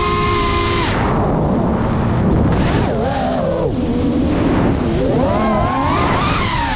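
FPV quadcopter's brushless motors whining with the throttle. A steady whine drops away about a second in, then the pitch swings up and down again and again as the quad dives and pulls out.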